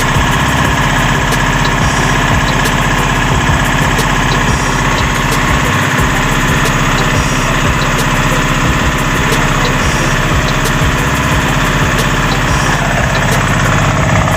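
Small air-cooled single-cylinder engine running steadily on a test run, its rapid even firing beat clearly heard.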